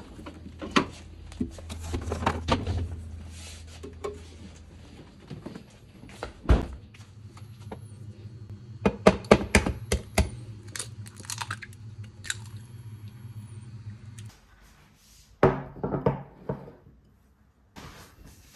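Kitchen handling sounds: a run of knocks and clatter from utensils and dishes being set down and moved, over a low steady hum that stops about 14 seconds in, followed by a few more knocks.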